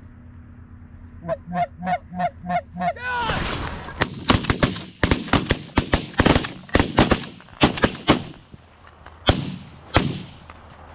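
Six quick goose honks, then a rapid volley of a dozen or more shotgun blasts from several hunters firing at once at incoming Canada geese, with two last shots near the end.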